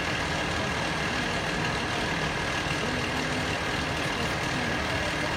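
Fire engine's diesel engine idling steadily.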